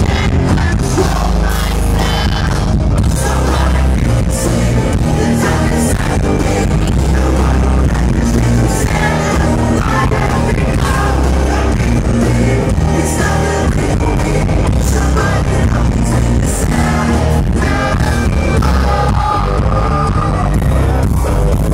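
Hard rock band playing live at full volume: distorted electric guitars, bass and drums under a male lead singer.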